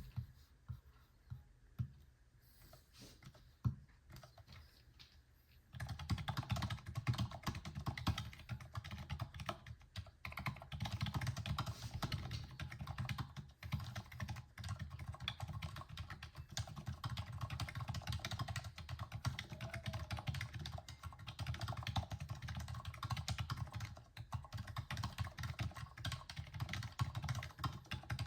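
Fast typing on a MoErgo Go60 split ergonomic mechanical keyboard with Plum Blossom 45g linear switches, at about 118 words per minute. A few scattered keystrokes come first, then from about six seconds in a rapid, steady stream of key presses with only brief pauses.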